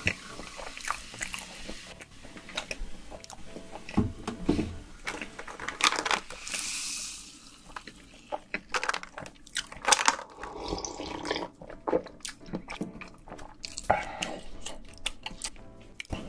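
Close-miked eating sounds: chewing with many short wet clicks and smacks, and a hiss lasting over a second about six seconds in.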